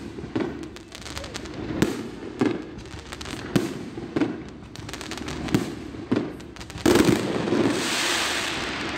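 Fireworks display: aerial shells bursting in a string of sharp, irregular bangs. About seven seconds in, a louder bang is followed by a long hiss that fades out.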